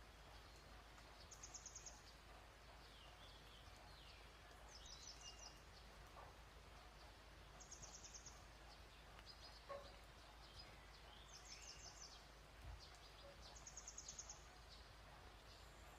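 Faint background birdsong: a short, high, trilled phrase repeating about every three seconds, with a few softer chirps between, over low steady room noise.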